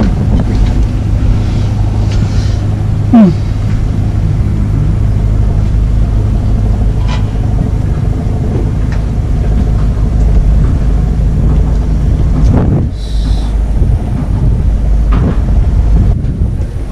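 A loud, steady low rumble, with a brief loud sliding sound about three seconds in.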